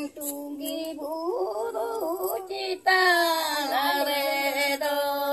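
Singing in long held notes, with a short break a little past halfway.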